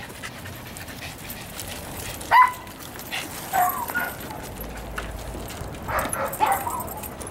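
Dogs barking and yipping as they play together: one sharp bark about two and a half seconds in, a few softer, higher yips just after, and a quick run of barks and yips near the end.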